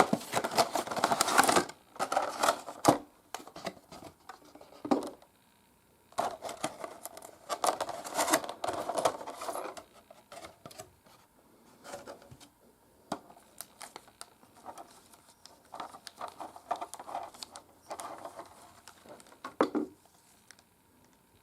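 Cardboard box and plastic packaging being handled as a small die-cast model plane is taken out: scraping, rustling and clicks in irregular bursts, with short quiet gaps between.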